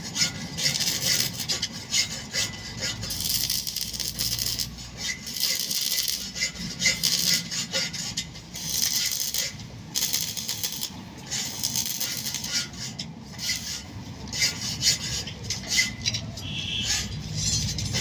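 Rough scraping and rubbing in irregular strokes.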